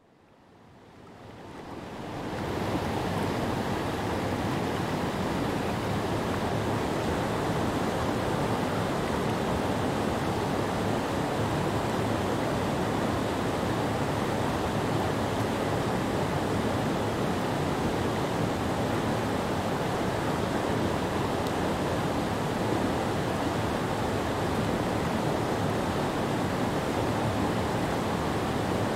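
Silver Creek's whitewater rushing over a low rock ledge in small cascades, a steady, even rush of water that fades in over the first couple of seconds.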